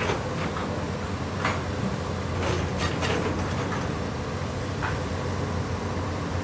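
Heavy diesel engine running steadily, with sharp metallic knocks and clanks: one right at the start, one at about a second and a half, three in quick succession near the middle, and one more near the end.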